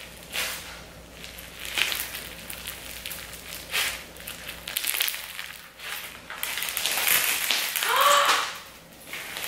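Clear slime packed with sugar beads being stretched and squeezed by hand, giving a dense crunching crackle as the beads grind and pop in it. A short vocal "ooh" comes near the end.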